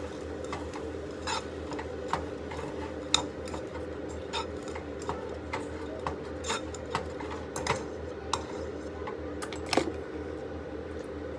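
A utensil stirring shredded cabbage and carrots in a cooking pot, clinking and scraping against the pot in irregular clicks about once or twice a second, over a steady low hum.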